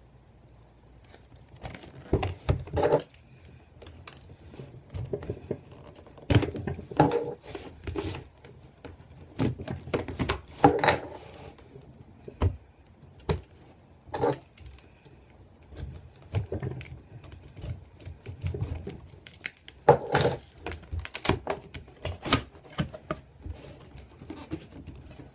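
Hands handling and opening a cardboard camcorder box: irregular taps, knocks and scrapes of cardboard, with paper rustling as the flaps and inner box are worked open.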